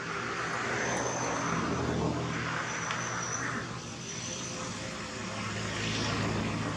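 A steady engine drone with a low hum, swelling louder about two seconds in, easing, then swelling again near the end.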